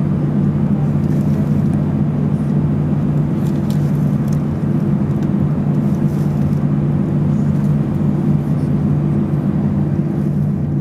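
Airbus A319's jet engines running at low taxi power, heard inside the passenger cabin as a steady, loud hum with a low drone.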